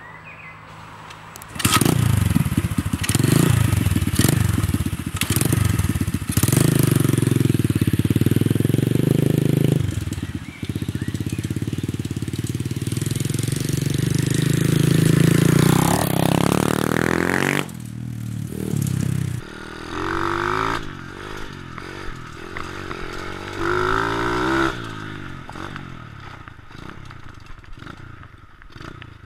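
The 125cc four-stroke engine of a KXD 607 pit bike comes in suddenly about a second and a half in, then revs up again and again as the bike is ridden. Near the end it is quieter, its revs rising and falling.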